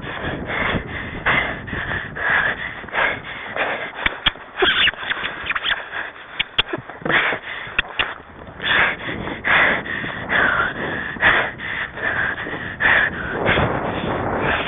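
A rider's heavy breathing: rapid, breathy puffs, roughly one or two a second, close to the microphone.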